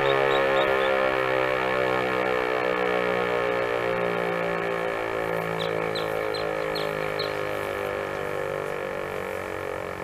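Federal Signal 508-128 dual-tone outdoor warning siren winding down, its chord slowly falling in pitch and fading. The head is not rotating because its rotator is broken, so the tone holds level without the usual rise and fall of a sweeping horn.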